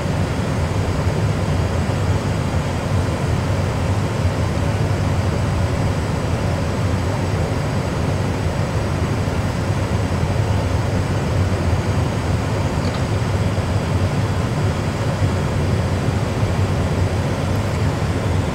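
Steady low rumble and hiss of an Airbus A320 full flight simulator's cockpit noise: the simulated sound of the airliner flying on one engine, with engine number one shut down.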